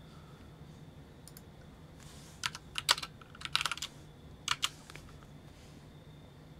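Typing on a computer keyboard: a short, uneven run of keystrokes starting about two and a half seconds in and ending a little before the five-second mark.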